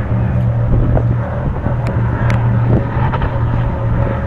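Steady low drone of offshore racing powerboat engines, with wind buffeting the microphone and a few brief clicks.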